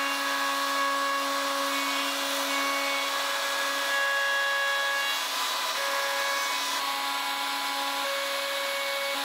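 Table-mounted router with a chamfer bit running at a steady whine while it cuts a chamfer along the edge of a walnut and hard maple cutting board.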